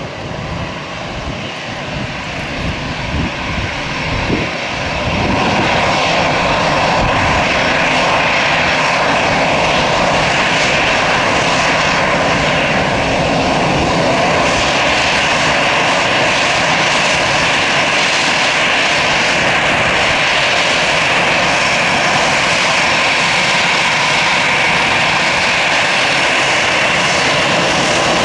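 Jet airliner's CFM56 turbofan engines running at taxi power, a steady whine and rush that grows louder about five seconds in and then holds level.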